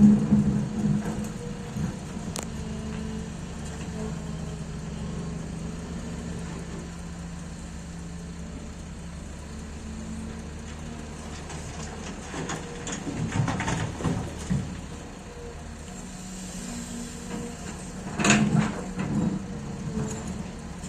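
XCMG 210C excavator's diesel engine running steadily during loading work. Louder passages with clattering come near the start, about two-thirds of the way through, and near the end.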